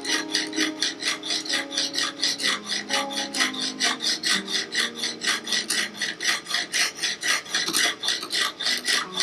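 A sharpening hone on a clamp-and-rod guided knife sharpener drawn quickly back and forth along a knife blade's edge: an even rasping scrape, about five strokes a second.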